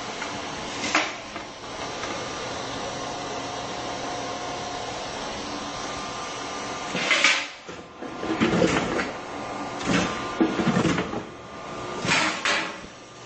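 Sheet-metal forming press with a die set working steel sheet: a steady machine hum with a single click, then from about seven seconds in, a series of about five loud strokes, some hissing releases and some metal clanks.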